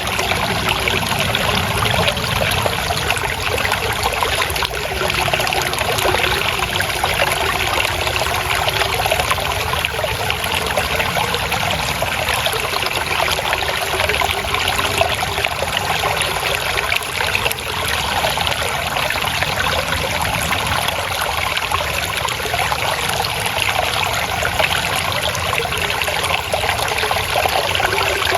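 Water trickling and babbling steadily as it flows, an even splashing with no pauses.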